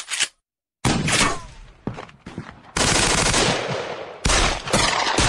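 Gunfire sound effect: a short burst of shots, then longer loud volleys of rapid fire, starting and stopping abruptly.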